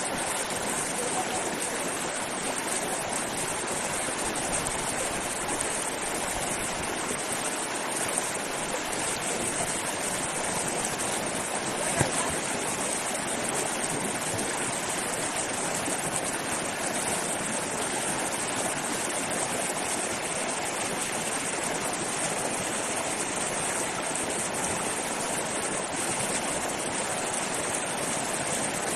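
Steady rush of flowing river water, even and unbroken, with a single sharp knock about twelve seconds in.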